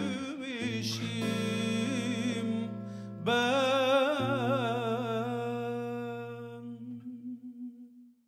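A man singing a slow ballad into a microphone over instrumental accompaniment, holding a long note with vibrato from about three seconds in that fades away near the end.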